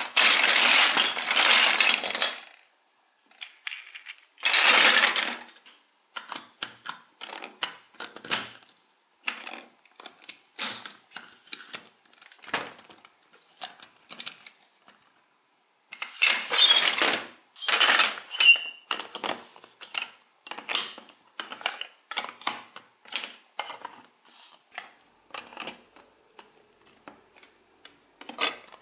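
Large plastic toy building bricks clattering as hands rummage through a pile of them, in a few long rattling spells, with many single sharp clicks between them as pieces are handled and snapped together.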